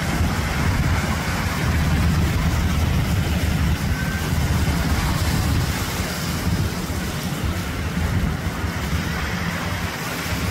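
Steady low engine rumble over the wash of beach surf, easing slightly near the end.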